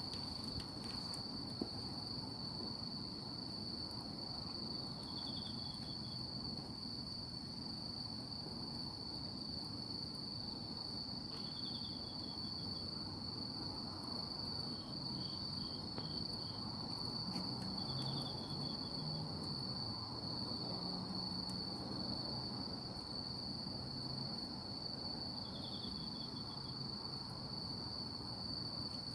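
Night insects calling: one gives a continuous high-pitched trill, while another answers with short pulsed chirps about every six seconds. A few faint crackles come from the charcoal fire.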